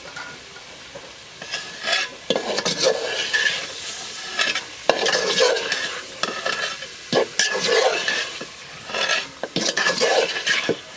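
A spoon scraping and stirring raw chicken pieces through spice pastes and turmeric powder in a sizzling cooking pot, in a run of irregular strokes with clicks against the pot, while the masala fries.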